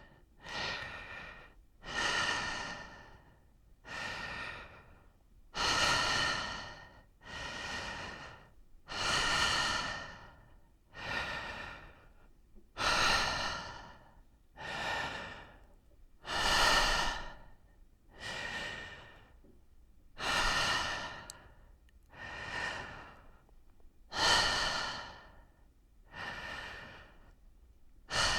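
A person breathing slowly in and out, each breath lasting about a second, with louder and softer breaths alternating: roughly one full in-and-out cycle every three and a half to four seconds.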